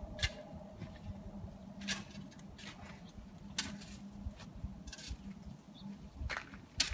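Irregular crunching footsteps on ice-crusted snow, about seven short, sharp crunches spread unevenly, over a faint steady low hum.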